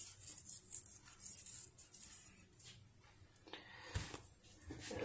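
Fingers rubbing and crumbling dried parsley flakes over baked acorn squash, a faint dry rustle, followed by a single soft knock about four seconds in.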